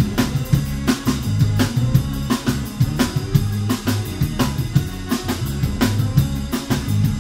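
Live band music driven by a drum kit: kick drum, snare and rimshots keep a steady beat over moving bass notes.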